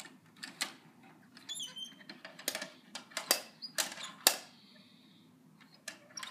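Plastic clicks and knocks of a Bruder toy side-loader garbage truck's lift arm and garbage can being worked by hand, with a brief high squeak about one and a half seconds in. The clicks come irregularly, bunched in the middle, with the loudest knock about four seconds in.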